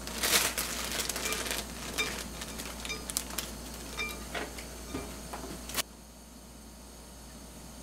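Plastic bag of bean sprouts crinkling and the sprouts rustling as they are shaken out into a tagine and pressed down by hand, with many small crackles and clicks and a louder crinkle just after the start. The sound cuts off about six seconds in, leaving a faint hiss.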